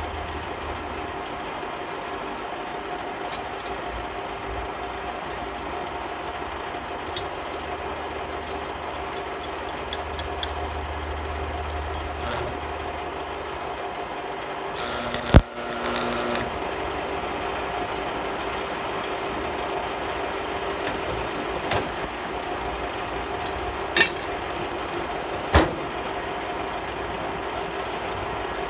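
Steady hum of a Miller Thunderbolt 250 AC stick welder (buzz box) switched on, with a short crackling burst of the welding arc about halfway through as the rod strikes the thin plate. The burst begins with a sharp crack, and two sharp clicks of the rod tapping follow later.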